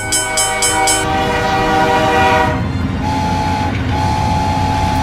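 Train sound effect: a long whistle blast over a rattling, clattering rumble. Near the end come two shorter whistle toots.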